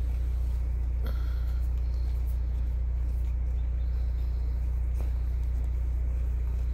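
A steady low hum, like an engine idling. About a second in there is a short high-pitched chirp.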